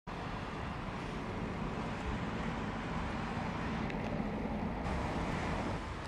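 Steady distant city traffic noise, a continuous hum, with a low rumble that swells through the middle and eases off near the end.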